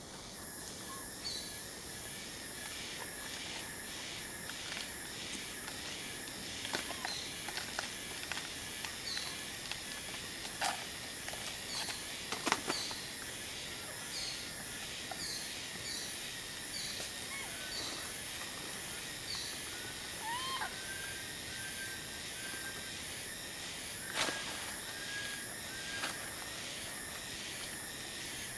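Outdoor natural ambience: a steady hiss with a short high chirp repeating about every second, a few sharp clicks, and a couple of brief rising squeaky animal calls.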